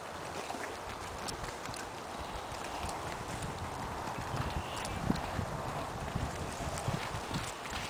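Hoofbeats of a Thoroughbred gelding cantering on grass and dirt, his front hooves shod with aluminum shoes and his hind hooves bare. The thuds grow louder in the second half as the horse comes closer.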